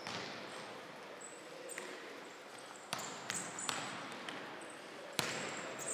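Futsal ball being kicked and bouncing on a wooden sports-hall floor: a quick run of three sharp thuds about three seconds in and another near the end. The hall's echo is under the thuds, along with short high squeaks of players' shoes on the boards.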